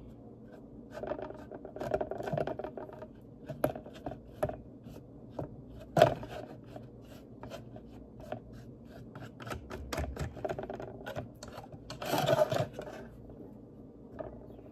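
Paintbrush rubbing and dabbing against a thin plastic bottle, with the plastic scratching and clicking as it is handled; a sharp click about six seconds in and a short scraping rustle near the end.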